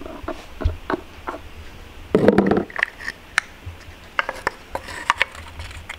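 Short metal and plastic clicks and light clatter as roller lifters and their plastic guide trays are fitted into an LS V8 engine block, with one louder, duller knock and rustle about two seconds in.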